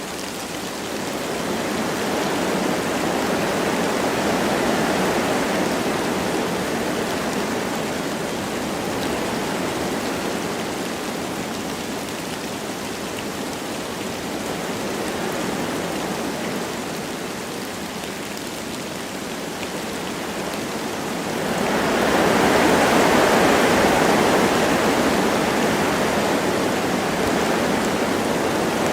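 Wind blowing through forest trees in slow swells, with light rain; a stronger gust builds about three-quarters of the way through and holds.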